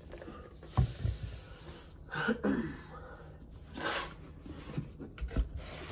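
Faint knocks and thumps of plastic items being handled and set down, with a short breathy sniff about four seconds in.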